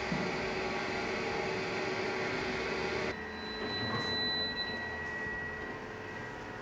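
Unox Bakerlux Shop Pro convection oven running, its fan giving a steady hum and hiss; about three seconds in the sound drops to a quieter steady hum with a faint high tone, and the oven door is opened about four seconds in.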